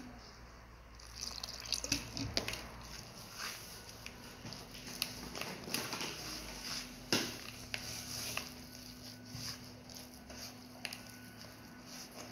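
Hands mixing and kneading a wet, sticky flour-oil-water dough in a plastic bowl: irregular squelching and patting with scattered sharp clicks, the sharpest about seven seconds in.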